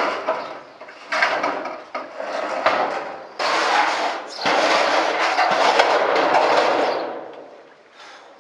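Rusty corrugated iron roofing sheet scraping and grating against the roof edge and the sheet below as it is slid down off the roof: a few short scrapes, then one long loud scrape in the middle that dies away near the end.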